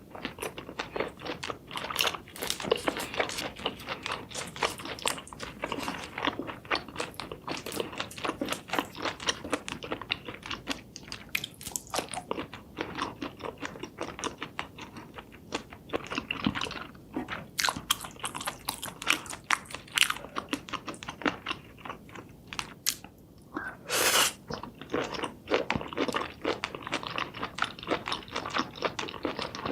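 Close-miked eating of cooked seafood: steady, irregular crunching, biting and chewing in many small crackles, with one short, louder noise about 24 seconds in.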